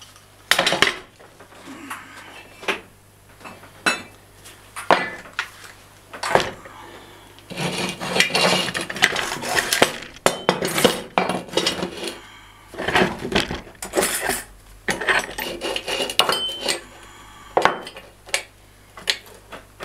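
Steel pieces and hand tools clinking, knocking and scraping on a workbench: irregular clusters of sharp metallic clinks, with a couple of longer scraping stretches in the middle.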